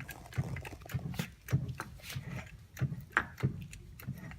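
Hydraulic punch driver being pumped by hand to press a wheel hub into the rear wheel bearing of a BMW E36 M3: a run of clicks and knocks, two or three a second, as the press draws the hub in.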